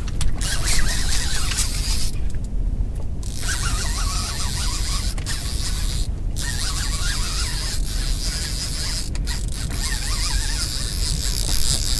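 Shimano TLD lever-drag multiplier reel being wound in against a hooked fish on a bent boat rod, its gears running steadily. The winding breaks off briefly about two seconds in and again around six seconds.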